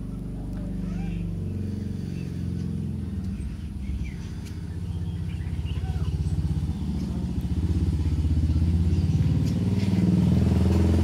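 An engine running steadily, a low hum that grows louder toward the end.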